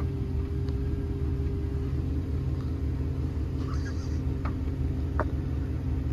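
Truck engine running steadily with a low rumble, its pitch holding even, and two faint clicks in the second half.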